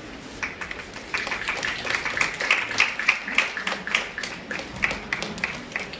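Audience applauding: many people clapping, starting about half a second in, building through the middle and thinning out near the end.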